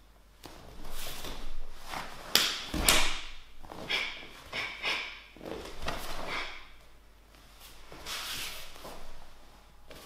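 Karate gi snapping and rustling with quick kata strikes and blocks, with bare feet stepping, sliding and thudding on judo mats. The heaviest thump comes about two and a half seconds in.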